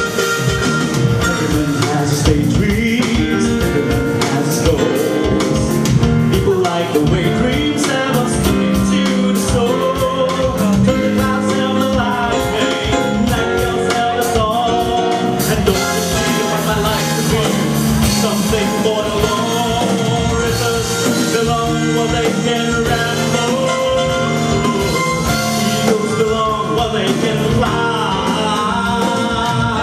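Live band playing a blues-rock song, with guitar and a drum kit.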